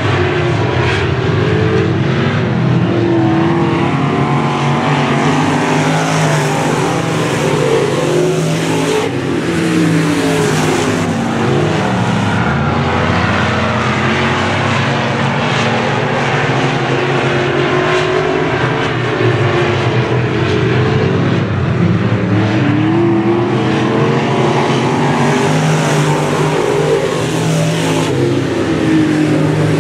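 A pack of dirt-track street stock race cars running at speed, several engines overlapping, rising and falling in pitch as the cars rev out of the turns and pass by.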